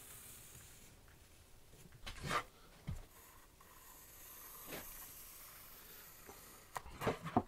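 A pencil marking out ash boards on a workbench: a few faint, short scratches and taps over quiet room tone, busier near the end.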